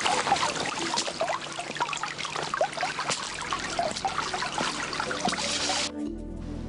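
Shallow rocky stream trickling and babbling, with splashes of boots wading through it. The water sound cuts off suddenly near the end, giving way to background music.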